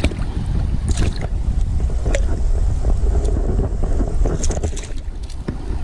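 Wind buffeting the microphone in a steady low rumble over the rush of a shallow river, with scattered short clicks and small splashes as a hooked fish is handled at the water's surface.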